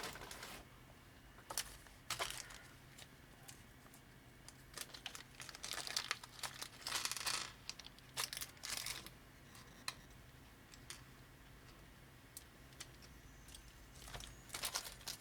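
Small plastic parts and a plastic parts baggie being handled, giving irregular crinkling rustles and light clicks, busiest in the middle and again near the end.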